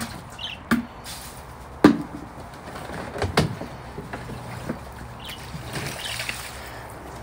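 A few sharp knocks. About six seconds in, water splashes and pours out of a plastic kiddie pool as it is tipped up and emptied onto concrete.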